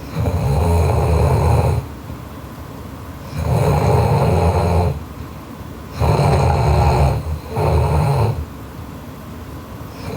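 A sleeping woman snoring loudly in a steady rhythm, one snore about every three seconds, each lasting about a second and a half; the third is broken by a short catch partway through.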